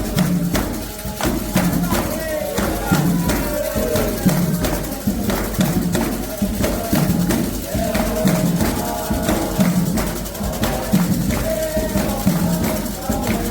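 Candomblé ritual music: atabaque hand drums and other percussion playing a steady rhythm, with a low drum stroke about once a second, while voices sing a chant.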